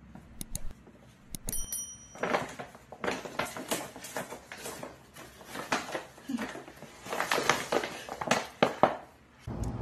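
Stiff paper shopping bag rustling and crinkling in irregular bursts as a small dog is lowered into it and its handles are gathered up.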